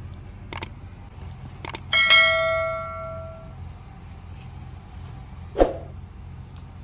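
A piece of metal struck once, ringing like a small bell and dying away over about a second and a half, after two light clicks; a dull thump near the end, over a steady low hum.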